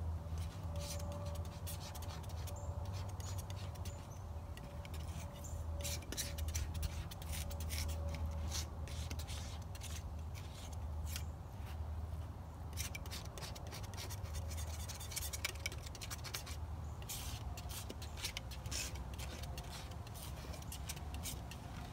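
Palette knife scraping and dabbing oil paint onto a painting board: irregular short scratchy strokes, over a steady low hum.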